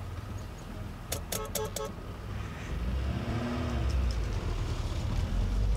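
Car engine running with a steady low rumble, revving briefly and getting louder about halfway through as the car moves off. A few short clicks and tones come about a second in.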